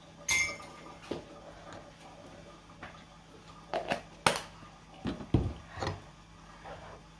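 Kitchen clatter: a series of separate metal clinks and knocks from a spoon and cookware being handled at a pan, the first about a third of a second in with a short ring.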